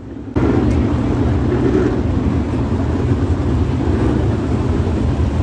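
A pack of 410 sprint cars' V8 engines running loudly together on the track, coming in abruptly about a third of a second in.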